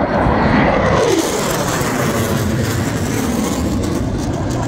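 Military jet aircraft flying past overhead, a loud, steady jet roar whose pitch sweeps downward in the first second as they pass.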